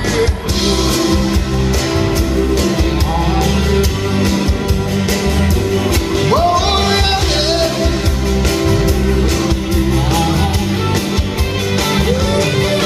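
Live band performance with a male singer at the microphone and an acoustic guitar, heard from the audience.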